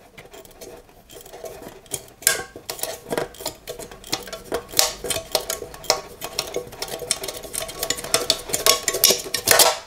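Thin tin-can metal crinkling and clicking as a partly cut-out disc in the can's side is bent back and forth by hand; sparse at first, then a dense run of sharp clicks from about two seconds in.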